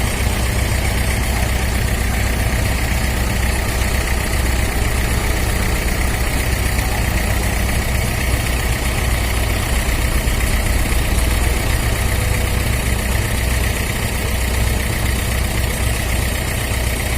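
Diesel engine of heavy machinery running at a steady idle, a deep even rumble with no change in speed.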